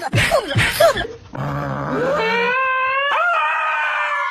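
Beagle howling: two long drawn-out howls in a row, the first gliding up in pitch before it holds steady.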